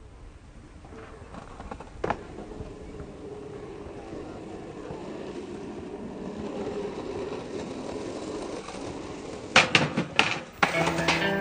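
A skateboard popping and its trucks and wheels clacking on a concrete ledge: several sharp clacks in quick succession near the end. Before that, a dim ambience swells slowly, with one sharp click about two seconds in, and music begins just after the clacks.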